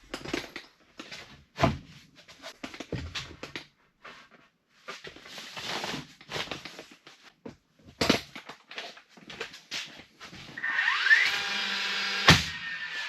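Lumber being handled and set down, with scattered knocks and clatter. Near the end a power saw's motor spins up with a rising whine and keeps running, with one sharp knock partway through.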